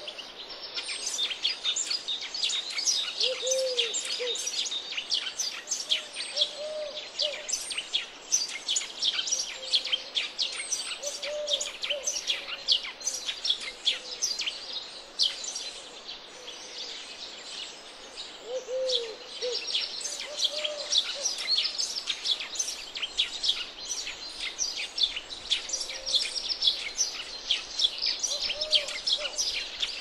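Chorus of small songbirds chirping and twittering busily, with a low call near the bottom of the chorus recurring every two to three seconds.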